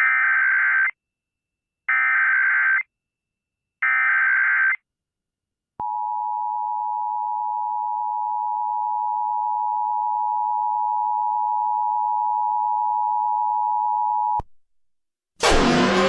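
Emergency Alert System SAME header data bursts, three short warbling data chirps a second apart, followed by the steady two-tone EAS attention signal held for about eight and a half seconds, then cutting off sharply: the start of an Amber Alert activation on the radio. A loud siren-like sound with swooping pitch begins near the end.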